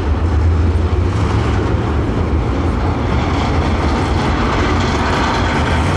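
Super late model race car engines running with a steady, loud, low drone.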